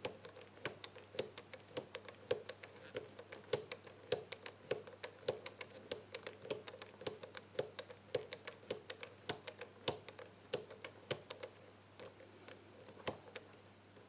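Combination wheels of an ABUS Tresor Chain Catena Combo 1385 bike lock being turned by hand, clicking number by number as the lock is decoded. A quick, uneven run of small clicks, several a second, thinning out near the end.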